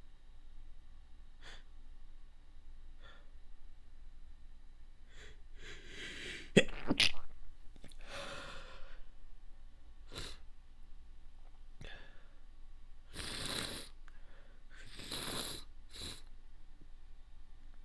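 A person stifling a wet sneeze. A sharp, loud burst comes about six and a half seconds in after a drawn-in breath, with shorter breathy bursts around it.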